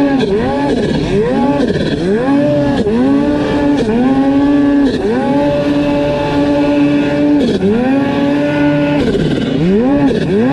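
Snowmobile engine revved in quick repeated throttle blips, its pitch rising and falling about twice a second. It is held at high revs for a few seconds in the middle, then the quick blips return near the end.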